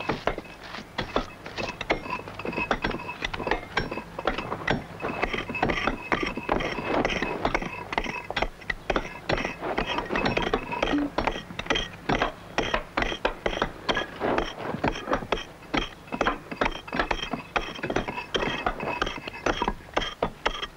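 An axe blade chipping into sandstone in quick, repeated strikes as a stonecutter finishes the wedge groove around a grindstone block.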